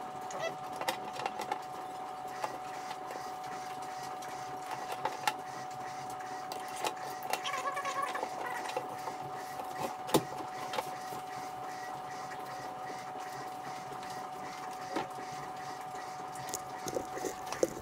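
Scattered light clicks and taps of hands fitting a fuel sump into the opening of a steel fuel tank, over a steady high-pitched hum.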